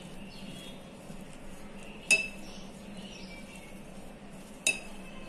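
Dry flour and ground beetroot being mixed by hand in a glass bowl, with two sharp clinks of glass about two and a half seconds apart, each ringing briefly.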